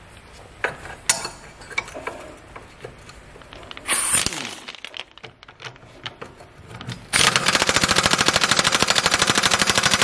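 Pneumatic impact wrench hammering rapidly on a rear camber arm bolt of a BMW E46 from about seven seconds in, trying to break the bolt loose. Before that come a few clicks of handling and a short hiss.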